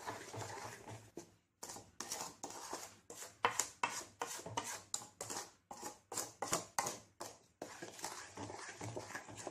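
Wooden spatula stirring thick mango pulp and sugar around a metal kadhai, scraping the pan in quick repeated strokes, about two or three a second.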